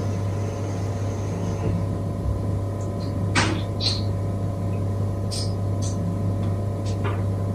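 A steady low electrical hum with a few faint short clicks or rustles about three, four, five and a half and seven seconds in.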